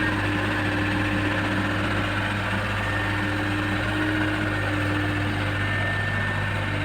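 Heavy diesel engine running steadily at a constant speed, with a faint high whine over it.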